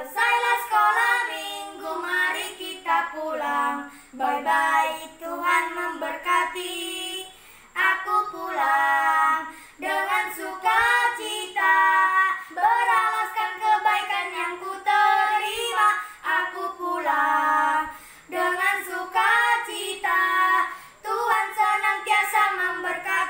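A girl and a boy singing a Sunday school children's song together in Indonesian.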